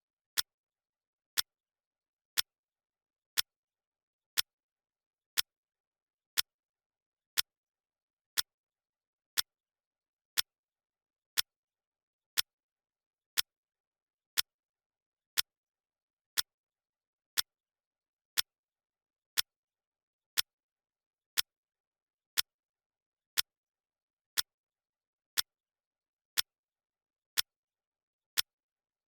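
Clock ticking sound effect: one sharp tick every second, evenly spaced, with silence between ticks, marking the countdown.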